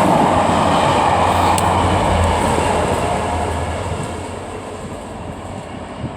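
Maintenance train hauled by a Class 67 diesel locomotive with Mark II coaches passing through the station, a loud rumble of engine and wheels on rail that fades away from about three seconds in as it recedes.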